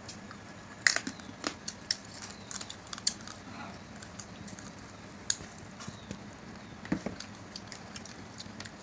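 Close-up eating sounds: irregular sharp clicks and smacks of mouths chewing and sucking meat off chicken bones, the loudest about a second in.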